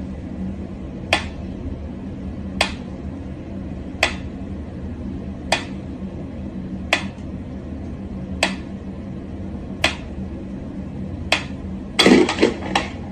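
A mechanical pendulum metronome ticking slowly, one sharp tick about every second and a half. Near the end a quick flurry of knocks and rattles, the loudest sound here, as a cat lunges at the metronome.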